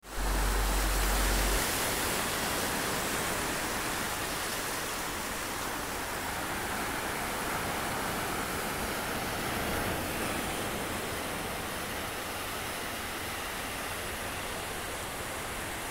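Ocean surf breaking on a reef and washing over a lava-rock shelf, a steady rush. A low rumble sits under it for the first second and a half.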